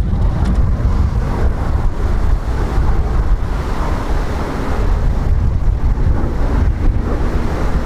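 Wind buffeting the microphone over the distant, steady drone of several light propeller planes' piston engines.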